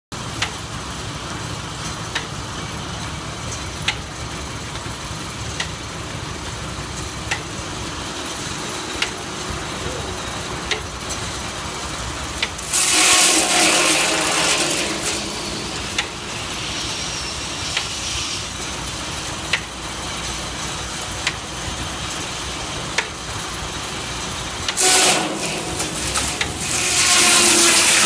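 Steam-engine-driven circular sawmill running, the big blade spinning free with a sharp click about every second and a half. Twice, about halfway through and again near the end, the blade bites into a log: a loud, hissing cut with a steady ringing tone under it.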